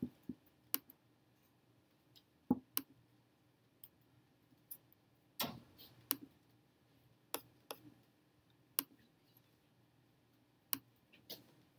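Sparse computer mouse clicks, about a dozen sharp single clicks at irregular intervals, over a faint steady room hum.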